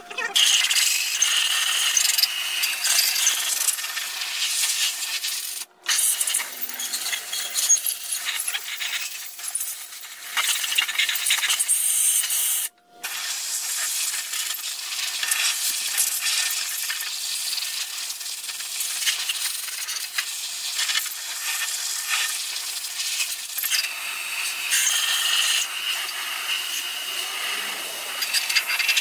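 Compressed-air blow gun hissing as air is blown over a freshly washed cast-iron diesel engine block to dry it before it flash-rusts, with two brief breaks in the hiss.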